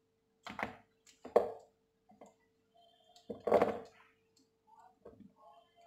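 Grapes being plucked off the bunch and dropped into a plastic colander: three short knocks and rattles, the loudest past the middle, with a few fainter ticks, over a faint steady hum.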